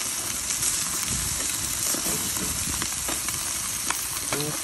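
Beef burgers, chicken and hot dogs sizzling on a foil-lined grill: a steady sizzle with a few small crackling pops.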